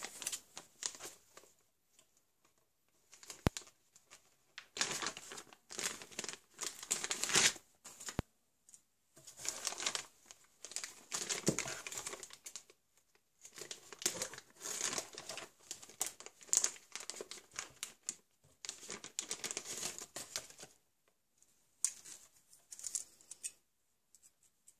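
Clear plastic packaging bag crinkling and rustling in irregular bursts as parts are handled and unwrapped from it, with short pauses between handfuls. Two brief clicks, about 3.5 s and 8 s in.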